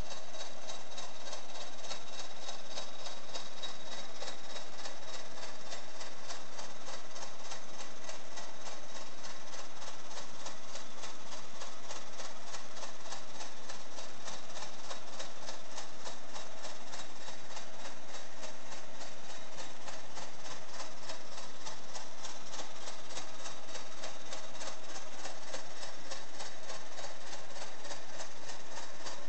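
Meccano model of a Corliss steam engine running, its metal flywheel, crank and valve linkages turning with a steady, rapid ticking clatter.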